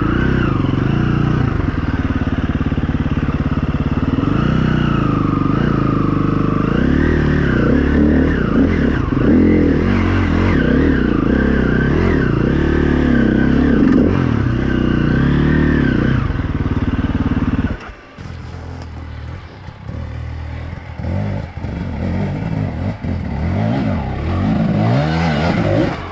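Dirt bike engine revving hard under load, its pitch rising and falling continually as it climbs a rocky hill. About 18 seconds in the level drops suddenly, leaving a quieter engine with short revving blips that grow louder again near the end.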